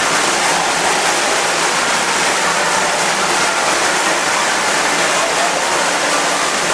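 Water gushing from the exit of the Hurricane Hole waterslide and pouring into its splash pool: a steady rushing of falling water, even in level throughout.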